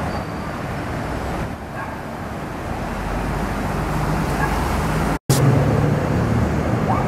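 Road traffic on a city street: a steady wash of car and tyre noise. The sound cuts out for an instant about five seconds in, and a low steady engine hum then runs under the traffic.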